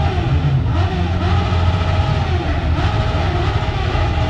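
Motorcycle engines running and revving: a steady low rumble with engine notes that rise and fall again and again.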